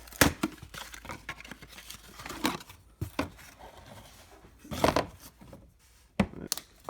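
Handling and unwrapping a new oil filter: packaging crinkling and tearing, with scattered sharp clicks and knocks and a louder cluster of handling noise about five seconds in.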